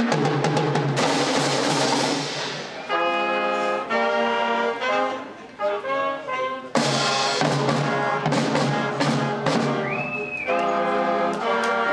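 Youth marching show band playing: runs of drum and cymbal strokes alternate with the brass section's held chords, which come in about three seconds in and again after eight seconds.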